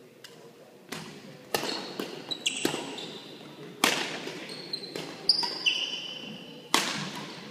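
Badminton rally: sharp racket strikes on the shuttlecock about once a second, each echoing in the gym hall, with sneakers squeaking on the hardwood court floor in short high squeals.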